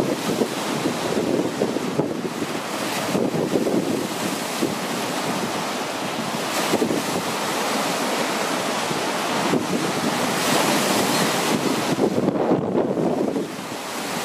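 Strong Foehn wind buffeting the microphone in gusts, over lake waves breaking and splashing against the rocky shore.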